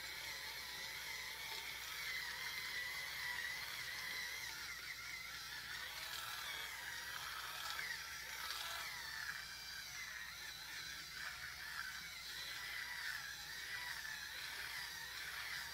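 Small battery-powered facial cleansing brush buzzing steadily as it is pressed and moved over the face, its pitch wavering with the pressure.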